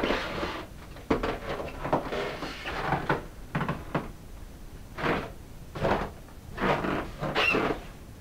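Footsteps crunching through snow, irregular at first, then at a steady walking pace of about one step every 0.8 seconds.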